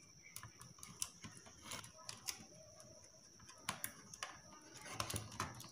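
Faint, irregular small clicks and taps of electrical wire being handled and pushed into the terminals on the back of a plastic switchboard plate.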